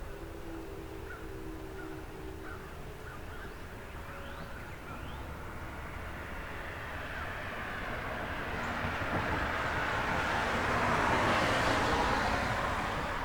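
A vehicle passing on the road: its tyre and engine noise builds over several seconds and peaks near the end. There are a few faint bird chirps in the first few seconds.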